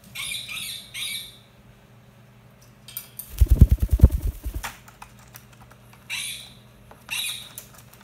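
Indian ringneck parakeet giving four short, shrill squawks, two at the start and two near the end. In the middle comes a louder flurry of wingbeats close by, lasting about a second.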